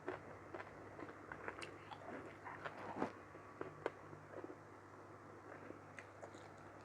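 Close-miked chewing of mutton curry with rice: wet mouth clicks and smacks, frequent for the first few seconds, then thinning out to a few faint ones.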